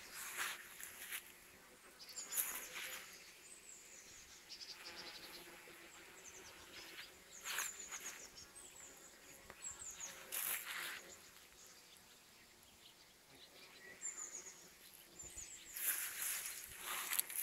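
Bees buzzing faintly as they forage on flowering anise hyssop, a steady low hum. Several brief, louder high-pitched bursts break in now and then.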